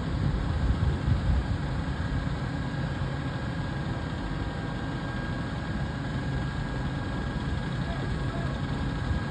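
Steady low rumble of a heavy diesel engine idling, from the truck-mounted crane, with a faint steady high tone above it.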